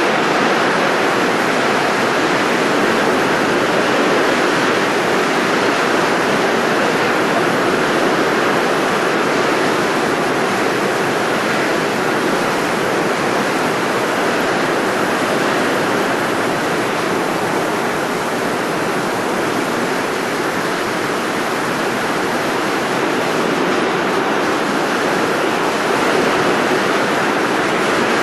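Steady, unbroken rushing noise of a blowing sound effect.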